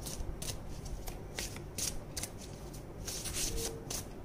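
A deck of oracle cards being shuffled by hand: an irregular run of short card-on-card slaps, two or three a second.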